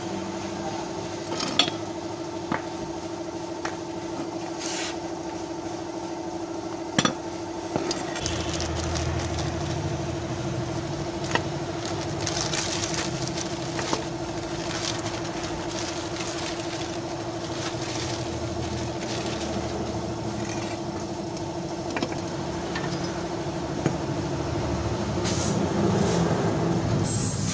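A steady mechanical hum runs throughout, with a few sharp knocks scattered through it. Around twelve to fifteen seconds in, plastic wrapping crinkles as a new suspension lower arm is unwrapped.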